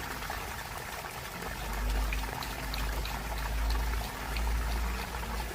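Water pouring steadily from the open end of an above-ground sump pump discharge line, pushed by a 1/3-horsepower outdoor sump pump, with a low rumble that swells twice.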